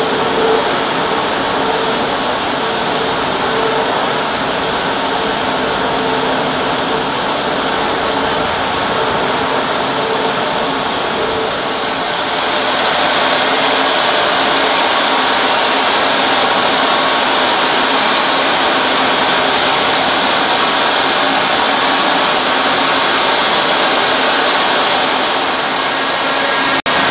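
Steady, loud machinery noise from an offshore oil platform's process equipment, with a low hum at two pitches under it. About twelve seconds in it turns louder and more hissing.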